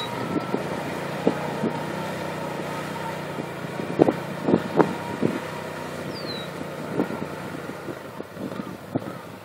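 ATV engine running steadily and slowly fading as the machine moves away, with a few sharp knocks around the middle.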